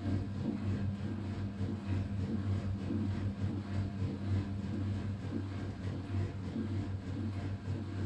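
Vintage Candy 133 front-loading washing machine in its wash cycle: the motor hums steadily as the drum turns the wet bedding.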